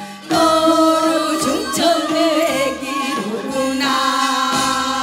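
Korean traditional (gugak) ensemble music: a melody with wide, wavering pitch over steadily held notes, starting after a brief pause.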